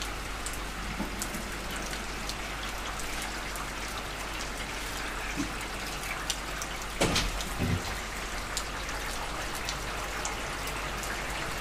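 Steady rain falling, with scattered drops ticking close by. A couple of dull knocks come about seven seconds in.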